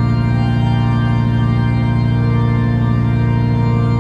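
Background music: sustained organ chords, held steadily.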